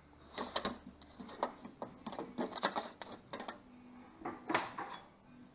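Irregular light clicks and knocks, about a dozen, with one louder knock near the end, as items are loaded into the dispenser tubes of an opened coin-operated vending machine.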